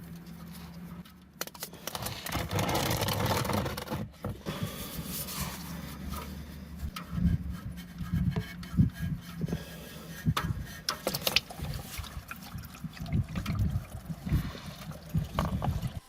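Ratchet and socket loosening an oil drain plug, with a run of clicks and knocks. Warm engine oil pours out into a drain pan. A steady low hum runs underneath.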